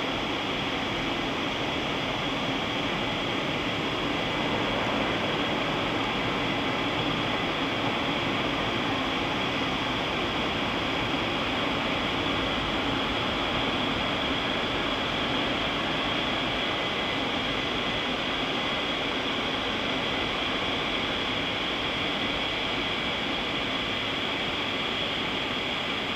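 Automatic car-wash drying blowers running with a steady rush of air, heard from inside the car as the dryer gantry passes over it.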